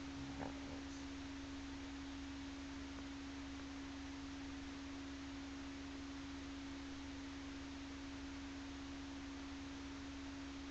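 A steady hum at one unchanging pitch over a faint even hiss.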